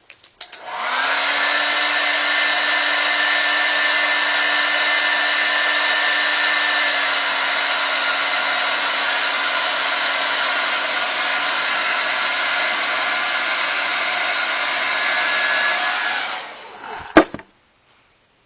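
Handheld hot-air blower switched on, running steadily for about fifteen seconds to heat and soften the shoe's plastic heel cup, then switched off, winding down with a click.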